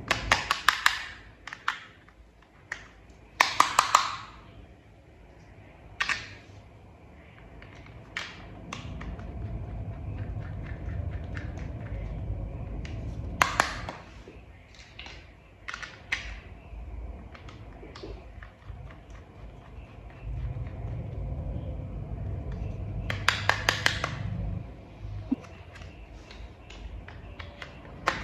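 Small plastic toy parts being handled and fitted together: scattered sharp clicks and taps, with a few quick rattling runs of clicks. A low rumble comes in twice for several seconds.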